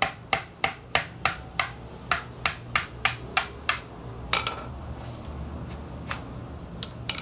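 Claw hammer striking the handle of a screwdriver to drive it through a coconut's shell for a vent hole: a steady run of sharp taps, about three a second, ending a little past four seconds in with a harder strike that rings briefly. Two quick clicks near the end.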